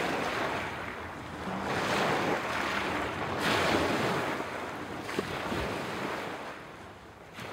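Small waves washing onto a pebble beach, the surf swelling and ebbing several times and easing off near the end.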